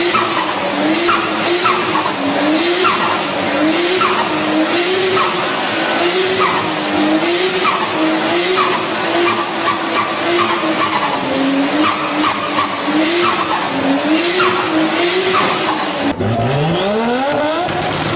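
Car tyres squealing in a sustained slide, with the engine note swinging up and down about once a second as the throttle is worked. Near the end it cuts to an engine revving up.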